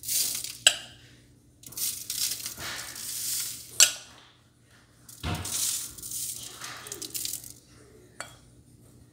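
Metal spoon working seasoning paste onto a pork leg: stretches of scraping and rustling, broken by three sharp clinks of the spoon against a dish, the loudest two about a second in and near four seconds.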